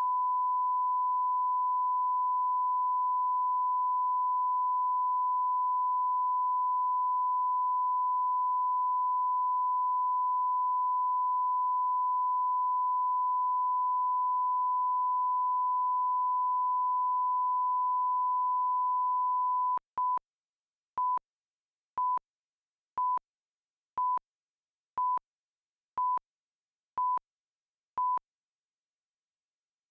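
Broadcast line-up tone: one steady, pure, high-pitched test tone for about twenty seconds, then it cuts off and a countdown of nine short beeps follows, one a second.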